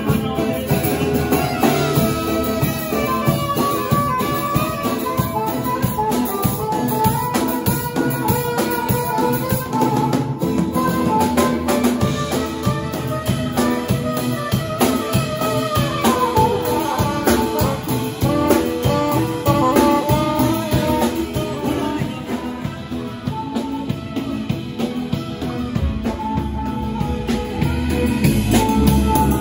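Live band playing an upbeat tune: a saxophone carries the melody over strummed acoustic guitar and a drum kit.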